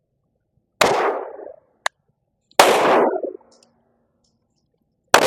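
Three shots from a Glock G44 .22 LR pistol firing Aguila high-velocity rounds, irregularly spaced about two seconds apart, each with a short echoing tail. A brief faint click comes between the first two shots.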